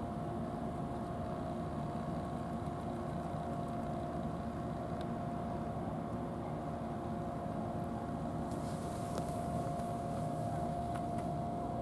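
A steady engine drone: a constant low rumble with an even, unchanging hum over it.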